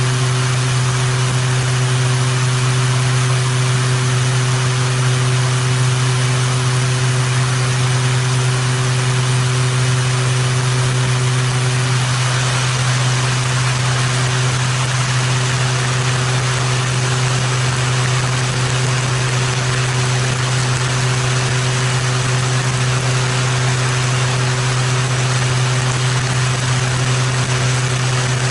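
Beechcraft King Air C90 twin turboprop in steady flight: a constant low propeller drone under a broad rush of wind noise over the outside-mounted camera, unchanging in level.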